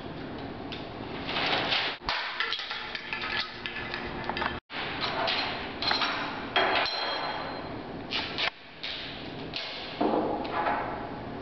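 Irregular knocking and clinking of glass, a series of sharp impacts of uneven spacing, with a brief cut-out a little before halfway.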